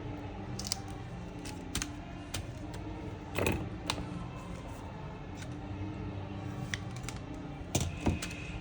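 Scattered small clicks and light taps from hands working double-sided tape onto a laptop's plastic chassis, the loudest about three and a half seconds in, over a steady low hum.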